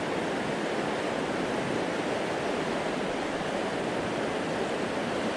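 Fast, high river water rushing steadily, an even noise with no breaks.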